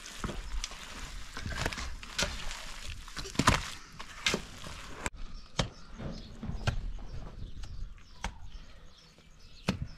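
Bare hands scooping, slapping and patting wet mud while shaping a mud wall, with scattered soft knocks and sharp clicks.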